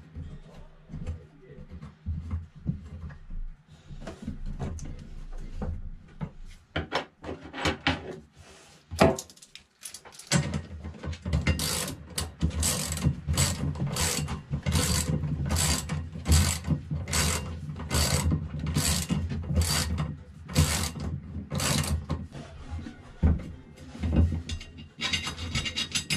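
Socket ratchet wrench tightening a bolt on a stainless windvane mounting bracket: a steady run of about twenty rasping ratchet strokes, roughly two a second, starting just before halfway. Before it come a few scattered metal knocks as the bolt hardware is handled.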